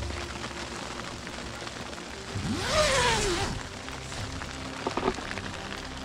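Dry, granular snow pattering steadily on a tent's fabric, heard from inside the tent. A little past a third of the way in comes a louder whoosh lasting about a second that rises and then falls in pitch, and near the end there are a couple of short knocks.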